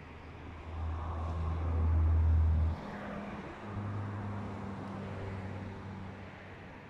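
A motor vehicle's engine hums low and steady. It grows louder about a second in and breaks off at nearly three seconds. Then it comes back at a slightly higher pitch and fades out toward the end.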